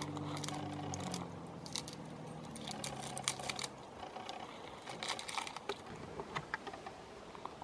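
Twigs and kindling crackling and clicking in scattered light snaps. A low steady hum runs under the first few seconds and fades out about four seconds in.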